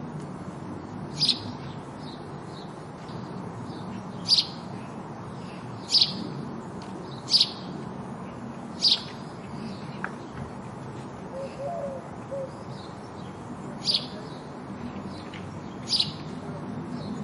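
House sparrow giving single short chirps, about seven of them, each a second or two apart, over a steady low background rumble.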